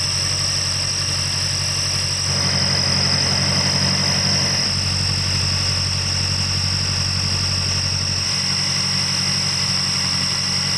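Car engine running at raised warm-up idle with a steady high-pitched whistle from under the bonnet, a whistle first suspected to come from the alternator's overrunning clutch or an idler pulley. The low engine hum shifts in tone a few times while the whistle holds steady.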